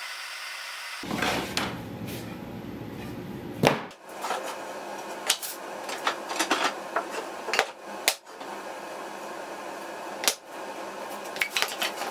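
Hardwood boards of walnut and oak knocking and clattering as they are pulled from a lumber rack and laid on a workbench. There are scattered sharp knocks, with the loudest about four seconds in.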